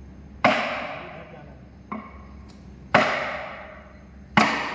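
Hammer blows on a bare cast-iron Cummins engine block: four strikes about a second and a half apart, the second lighter, each ringing and dying away.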